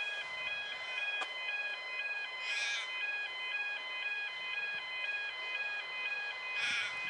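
Electronic railway crossing warning alarm sounding a steady, regular, repeating two-tone pattern as a train approaches. A bird calls briefly about two and a half seconds in, and again near the end.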